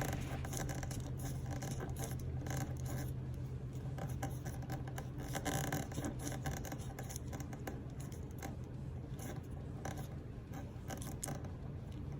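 Rapid small plastic clicks and scrapes of a Speakon connector's ratcheting strain relief being tightened onto a 12-gauge cable, over a steady low hum.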